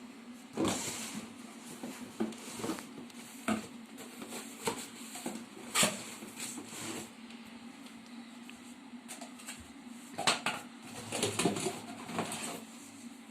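Unboxing a vacuum cleaner: its packaging and plastic parts being handled, with irregular rustles, scrapes and knocks, louder clusters about half a second in and again from about ten seconds on. A faint steady hum runs underneath.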